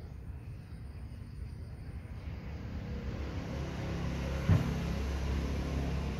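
A motor vehicle's engine running with a steady low hum that grows louder about halfway through, and a single sharp knock near the end.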